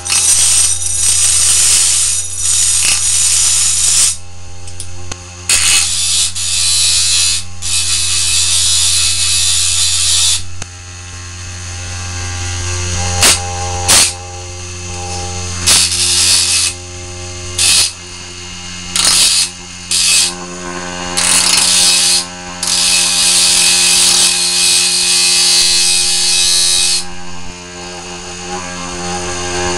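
Hard-drive spindle motor spinning a grinding disc with a steady humming vibration, the disc still a little unbalanced. A knife blade is pressed against the disc again and again, each contact a harsh hissing grind of a few seconds, the longest near the end, with short scrapes in between.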